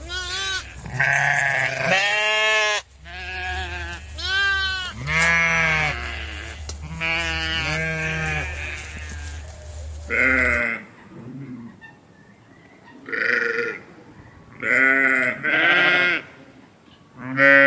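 Goats and sheep bleating: a string of wavering bleats about a second long each, one close after another for the first half, then several separate bleats with short quiet gaps between them.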